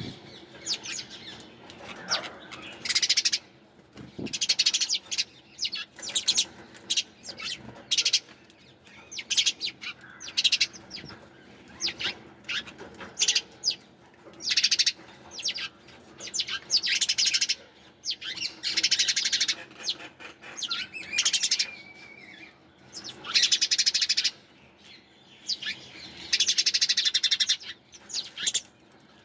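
Sparrows chirping in quick bursts of rapid chirps, each lasting about a second, with short pauses between.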